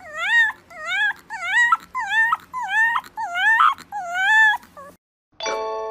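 A puppy gives a quick run of high-pitched yelping whines, about two a second, each one dipping and then rising in pitch. The calls stop about five seconds in, and a bright ringing chime starts near the end.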